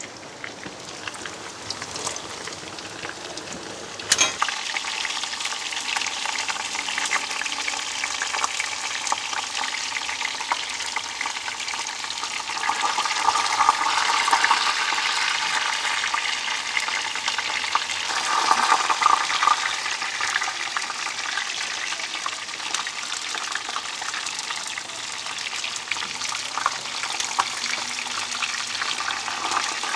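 Potato fries deep-frying in hot oil over embers, a steady crackling sizzle. It jumps up sharply about four seconds in and swells twice later.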